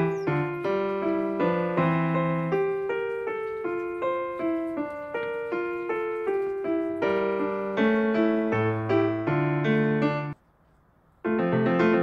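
Background piano music, playing a melody over a steady run of notes. It breaks off for under a second about ten seconds in, then starts again.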